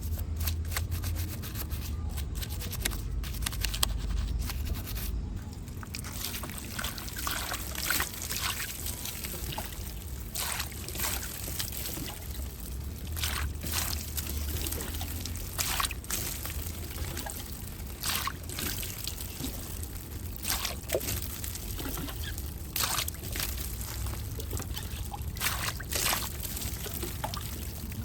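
Water trickling and splashing as a small die-cast model motorcycle is rinsed, with frequent light clicks and splashes. The hissing water sound sets in about six seconds in.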